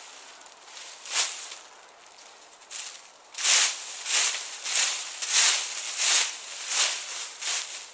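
Dry fallen leaves rustling and scraping as a homemade bush rake, with branch tines lashed on by cordage, is dragged through the leaf litter. A brief rustle comes about a second in, then from about three and a half seconds a run of raking strokes at about two a second.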